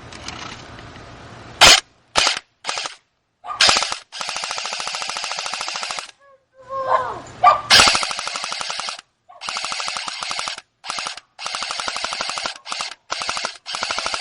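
A&K M249 SAW airsoft electric gun firing on full auto in a string of bursts of varying length, each a fast, even rattle of shots, the longest lasting about two and a half seconds.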